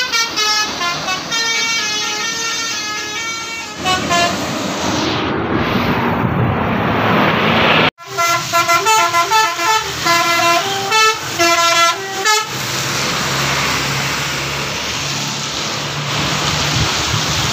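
Indonesian bus 'telolet' multi-tone air horn playing a quick melody of toots, followed by a rush of road noise. After a brief dropout another telolet horn tune plays for about four seconds, then a steady low engine hum takes over.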